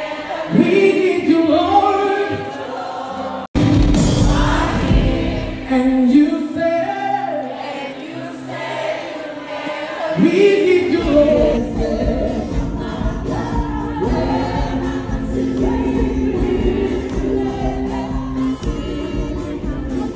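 Gospel choir singing, with an abrupt cut about three and a half seconds in; from about eleven seconds a steady bass accompaniment comes in under the voices.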